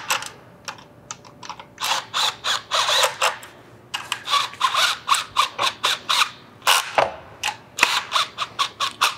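Hand ratchet clicking in runs of quick strokes, with short pauses between runs: a 10 mm flex-head ratchet running small retainer bolts into a magnesium chain box by hand.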